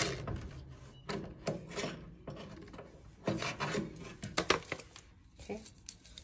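A Ryobi cordless drill/driver's run trails off at the very start. Then come irregular light clicks and scrapes of hands working small metal parts at the back of a dryer, as a screw and wired terminals come off a thermostat.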